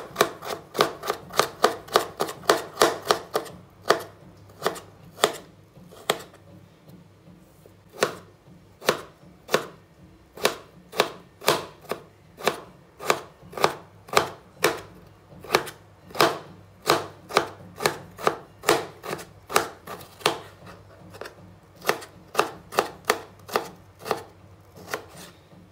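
Kitchen knife chopping potato into thin strips on a wooden cutting board: the blade knocks sharply on the board, fast at about four strokes a second for the first few seconds, then in shorter runs with brief pauses.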